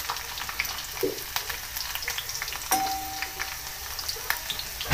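Cumin seeds and sliced garlic sizzling and crackling in hot oil in a steel kadhai, with many small pops, briefly stirred with a steel spoon at first. A short ringing tone sounds a little past halfway.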